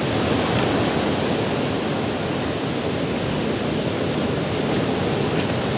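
Steady, even rushing noise, the outdoor background of moving water and wind at an open shore.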